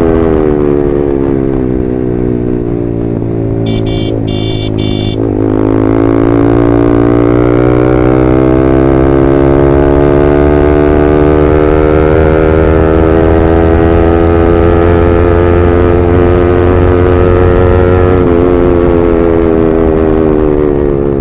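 Yamaha R15M's single-cylinder engine through an SC Project full-system exhaust, heard from the moving bike. The engine note falls for the first few seconds as the revs drop, then climbs slowly and steadily through a long pull, with a brief dip about 18 seconds in. A horn sounds three short times around four seconds in.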